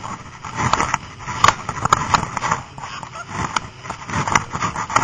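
Inflatable snow banana boat towed over snow by a snowmobile: irregular knocks and scraping as it bumps along, several jolts a second or so apart.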